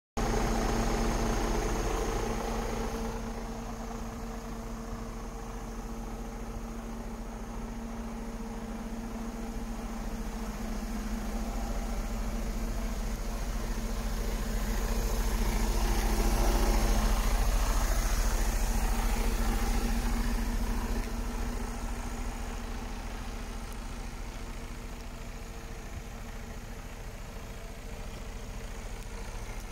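Mercedes-Benz Actros 2551's 12.8-litre straight-six diesel idling steadily, a low even hum that swells louder about halfway through and then eases off.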